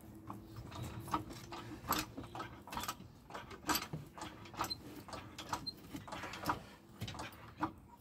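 Trolley jack being pumped by its long handle to lift a car, the pump mechanism clicking and clunking with each stroke, about twice a second.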